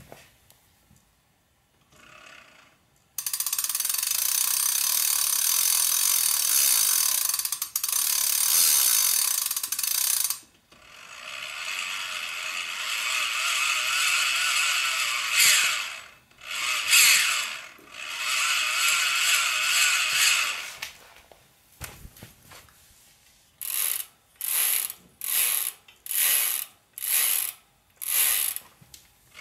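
Ratchet clicking of an unpowered, chainless Sunstar 03 mid-drive e-bike motor and its crank freewheel as the crank is turned. A long steady run of fast ticking comes first, then a second run that swells and fades, then seven short bursts of ticking near the end.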